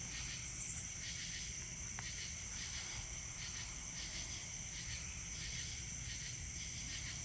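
Steady insect chorus, like crickets, with a continuous high whine and a pulsing chirr repeating a few times a second. A single faint click comes about two seconds in.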